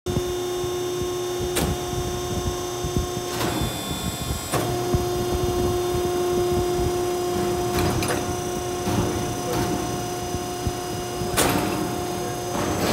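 Vicon vertical Pittsburgh seam closer running as it closes the Pittsburgh seam on a sheet-metal duct: a steady motor hum with a handful of sharp metal clicks. The hum breaks off for about a second, about three and a half seconds in.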